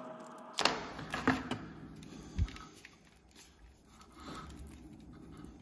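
Handling noises: a few sharp clicks and knocks in the first second and a half, a dull thump about two and a half seconds in, then soft rubbing and scraping as the coiled endoscope cable is lifted out of its cardboard box.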